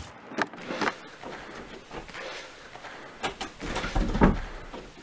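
Short, sharp sniffs and breaths from a man who has just snorted a line of powder, with scattered light knocks and a louder low thump about four seconds in.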